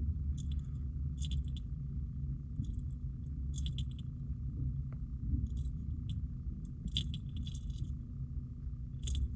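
A hard-bodied jerkbait lure rattling and clinking in short bursts about once a second, small metallic clicks from its internal weight balls and treble hooks, over a steady low hum.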